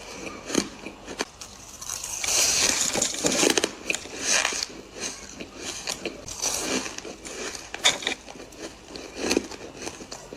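Close-up crunching and chewing of soft ice and freezer frost: a run of sharp, crackly bites, densest and loudest about two to four seconds in.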